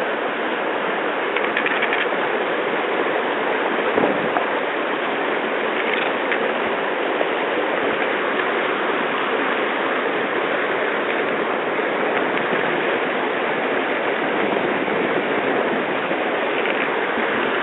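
Shallow mountain river rushing steadily over rocks, with a few faint clicks.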